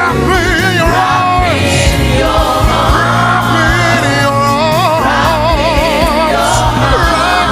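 Gospel worship song: voices singing long notes with wide vibrato over instrumental accompaniment with steady bass notes.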